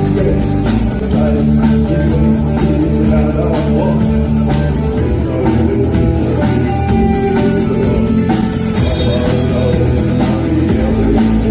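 Rock band playing guitar over a steady drum kit beat.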